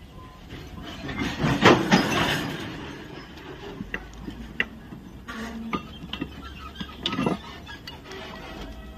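Clinks and knocks of hand tools and bolts on the steel joggled fish plate of a rail joint. A few sharp clicks stand out, and a louder rush of noise comes about two seconds in.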